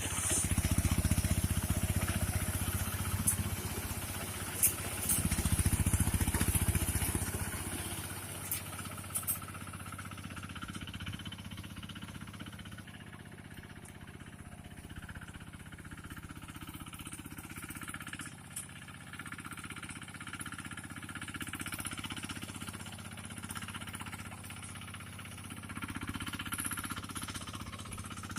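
Engine of a mechanical rice harvester running steadily, louder for the first seven seconds or so and then quieter, with a few short clicks.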